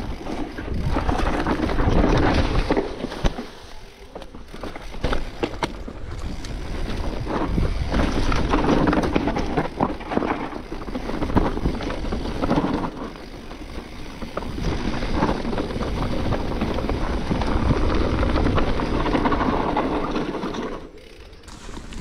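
Mountain bike descending a rough dirt trail: tyres rumbling over dirt and rocks, the bike rattling and knocking over bumps, with wind rushing over the microphone. The noise swells and eases with speed and drops briefly near the end.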